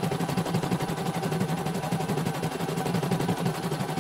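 CNY portable computerized embroidery machine stitching a design: the needle clatters in a fast, even stream of clicks over a steady motor hum, unbroken throughout.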